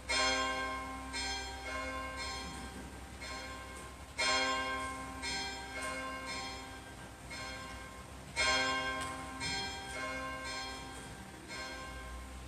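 Church bells ringing in repeating rounds, the first stroke of each round loudest and the rest following about every half second, each stroke ringing on.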